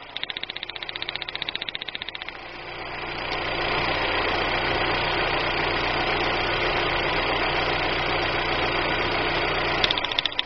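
Daewoo Nubira four-cylinder engine running rough with a fast, uneven pulsing beat from a misfire, which the owner traces to cylinder head damage. About two seconds in, the sound swells into a louder steady rush that holds until near the end, then drops back to the pulsing idle.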